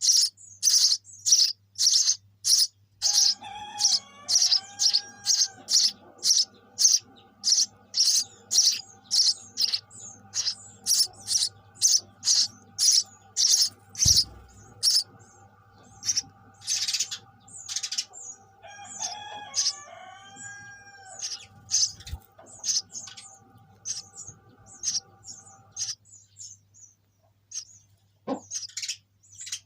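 Sparrow chirping over and over, short high chirps at about two a second, becoming sparser near the end. A faint steady hum runs underneath.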